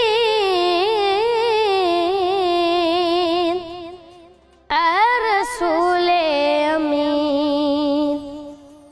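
A ten-year-old boy singing a naat with no instruments, holding long notes with a wavering vibrato and ornamented runs. The phrase breaks off for a breath about four seconds in, then a second long phrase follows and fades near the end.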